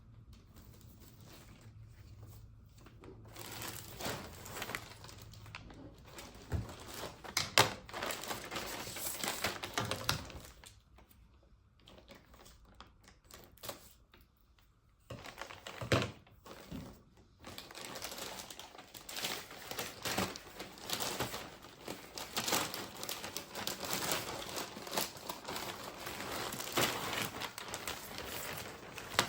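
Close handling sounds: crinkling and rustling as of packaging being handled, with many scattered clicks and taps. There is a quieter pause of a few seconds midway.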